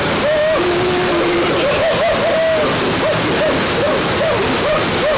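Steady rush of a twin waterfall pouring into a rock pool, with a run of short hooting notes, two or three a second, over it.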